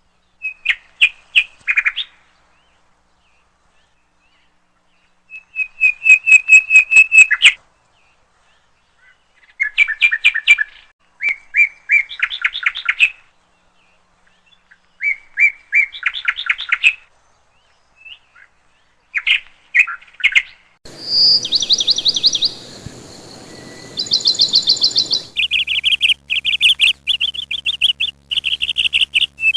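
A songbird singing short phrases of rapid repeated notes and trills, a few seconds apart with silence between. About two-thirds through, a faint hiss comes in and the phrases follow each other almost without a break.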